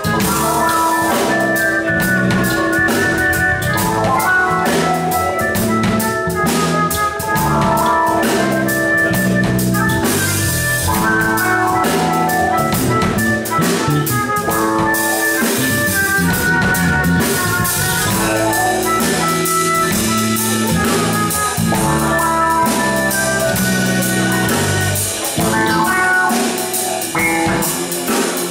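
Live instrumental funk-fusion band playing: electric guitar, electric bass, drum kit and keyboards together, with a steady drum beat under melodic lines.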